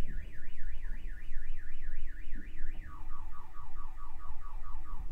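Car alarm sounding, probably set off by the earthquake shaking. It sweeps up and down about four times a second, and near the end switches to a lower, quicker warble, over a heavy low rumble.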